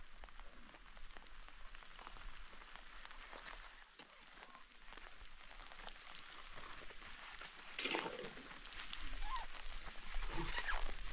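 Faint, scattered scraping, slapping and tapping of hand tools working wet concrete into a foundation trench, growing busier and louder in the last few seconds.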